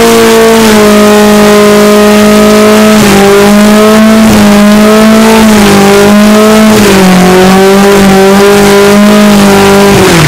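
Swapped-in 1.8-litre four-cylinder engine of a 1990 Mazda Miata held high in the revs during a burnout as the rear tyres spin in smoke. It holds a steady high pitch that dips slightly a couple of times.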